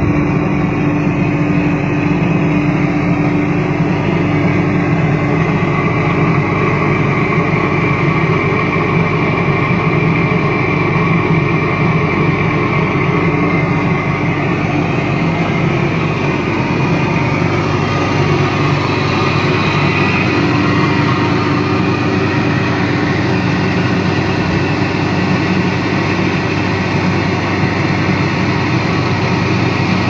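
River water-pumping machine running steadily, a loud, even mechanical drone.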